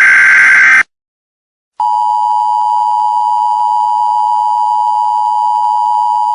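Emergency Alert System tones: a harsh, buzzy digital header burst ends about a second in. After a second of silence the EAS attention signal starts, a loud steady two-tone alarm held without change.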